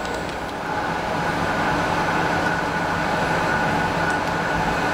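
Steady machine hum and whir with a few faint steady tones, growing a little louder about half a second in, with a faint click near the end.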